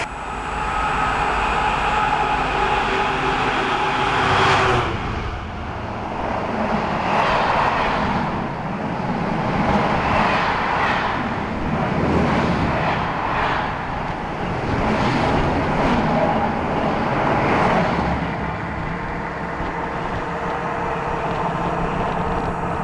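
Freightliner intermodal container train passing close by at speed. The locomotive's steady hum peaks and passes about four and a half seconds in. It is followed by the rumble of the container wagons' wheels on the rails, swelling and falling every second or two as each wagon goes by, then settling to a steadier rumble near the end.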